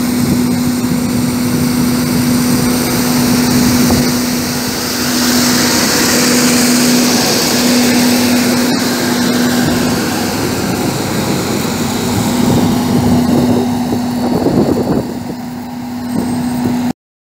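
KAMAZ street sweeper truck working along the curb: its engine running with a steady hum while the rotating gutter brush scrubs the road edge, with a brighter hiss for a few seconds in the middle. The sound cuts off suddenly near the end.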